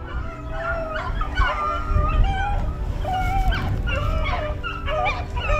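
A pack of beagles baying together, several voices overlapping in broken, wavering howls: hounds giving tongue as they run a rabbit's scent.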